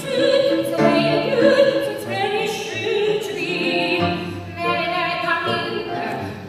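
A woman singing live into a microphone in a trained soprano voice, holding long notes with a wide vibrato.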